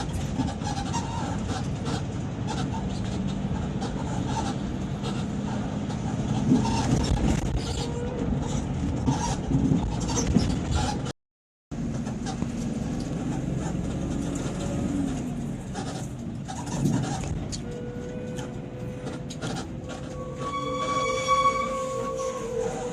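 Eka Cepat coach running in traffic: steady engine and road rumble, broken by a brief cut to silence about 11 seconds in. Near the end a horn sounds, a long steady low tone joined for about two seconds by a higher one.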